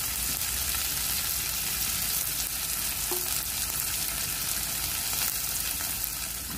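Chopped onion and garlic sizzling steadily in hot olive oil in a pot as they sauté, with a few faint crackles.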